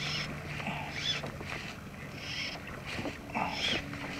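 Sea water lapping and splashing against a plastic kayak's hull in a light chop, in repeated short washes.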